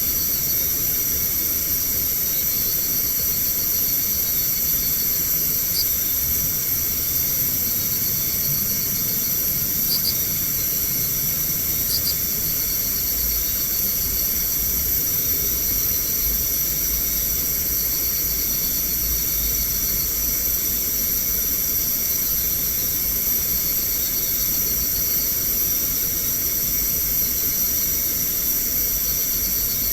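Steady hiss with constant high-pitched ringing from night insects, picked up by a CCTV camera's microphone, with a few faint ticks.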